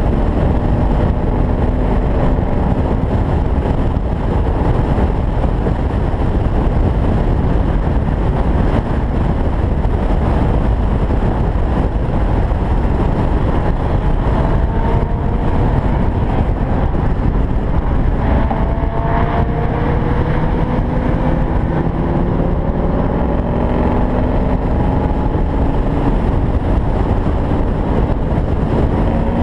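Steady wind rush and road noise from a convertible cruising at highway speed with its top down, with a faint engine hum that slowly rises in pitch several times.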